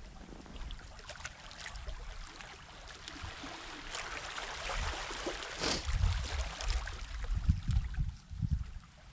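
Sea waves washing onto a shingle shore, the wash swelling louder about halfway through, over a low, uneven rumble on the microphone.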